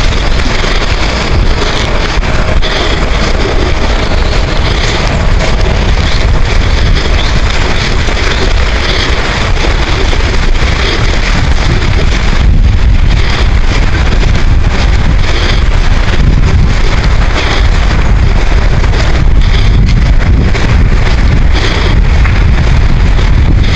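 Wind buffeting the microphone in a loud, continuous low rumble, with small bird calls repeating faintly through it.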